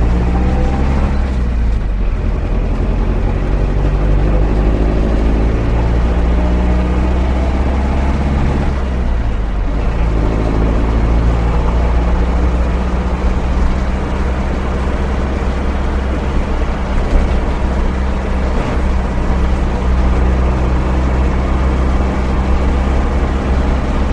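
Van's diesel engine pulling through the gears, its pitch rising twice with a short drop at each gear change about a second and a half and nine and a half seconds in, then running at a steady speed.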